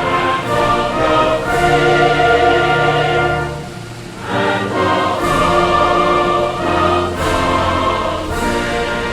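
Orchestral background music with a choir, sustained chords that dip briefly about four seconds in.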